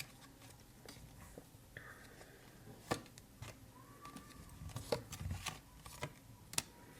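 Tarot cards being handled on a table: a few faint, separate clicks and taps, the clearest about three seconds in and another near the end.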